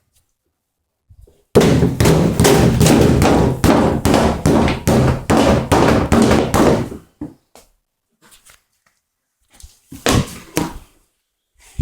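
Rapid, loud thuds and knocks on a repaired plastic car bumper, about three or four a second for some five seconds, then a few more near the end, as the repair is tested for strength.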